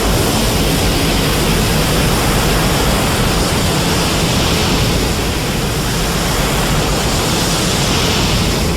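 Spiral ray sound effect from a science-fiction series: a steady rushing noise with a low rumble underneath, like a jet engine.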